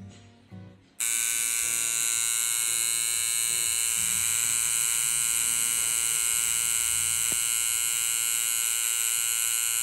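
Coil tattoo machine switched on about a second in, then buzzing loudly and steadily as its needle works over the stencil on the forearm skin.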